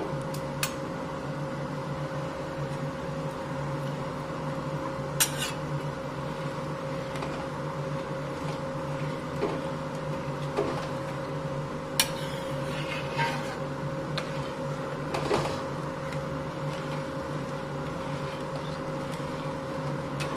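Steel spoon stirring carrots and milk boiling in a metal pan for gajar ka halwa, with a few sharp clinks of the spoon against the pan. A steady hum with a constant tone runs underneath.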